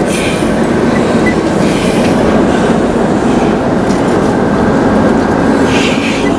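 Casino shuttle tram running along its track: a steady, loud rumble of wheels and car body, with brief higher squeals or hisses about two seconds in and near the end.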